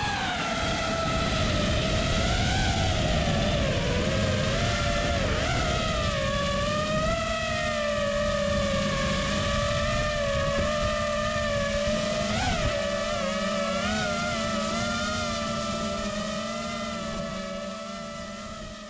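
FPV quadcopter's brushless motors and propellers whining, the pitch rising and dipping with throttle, over rumble of wind on the onboard microphone. The whine quietens over the last few seconds.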